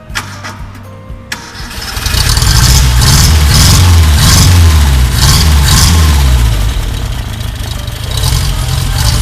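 Engine starting after a tune-up: a few clicks, then it catches about a second in and is revved up and down several times before settling to a steady idle.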